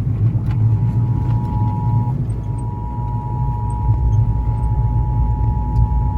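Emergency Alert System attention signal heard over FM radio: a steady two-tone beep, with the lower of the two tones dropping out about two seconds in. A loud, steady low rumble lies underneath and is louder than the tone.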